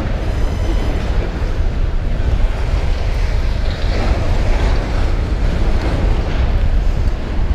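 Wind buffeting the microphone while cycling in the rain: a steady low rumble over a hiss of tyres on wet pavement.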